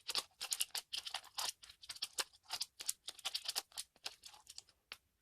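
Plastic speed cube being turned rapidly by hand: a quick, uneven run of clicks and clacks as its layers snap round during a fast solve.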